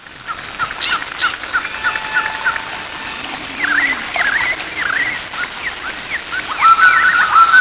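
Several birds chirping and whistling, with short calls overlapping; from about six and a half seconds one call repeats again and again.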